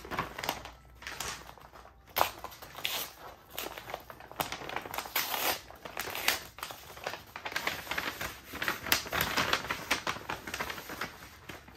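Thin green paper bag and a plastic mailer crinkling and rustling as they are handled, in uneven crackly spells that are loudest about nine seconds in.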